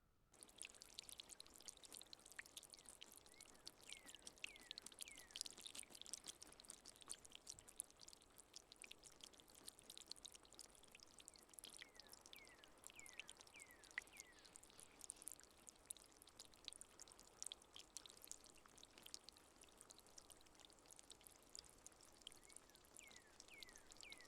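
Faint trickling water with many small drips and plinks.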